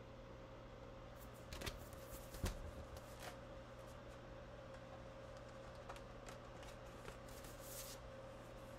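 Faint handling noise: soft rustles and clicks, grouped about two seconds in and again near the end, over a steady low electrical hum.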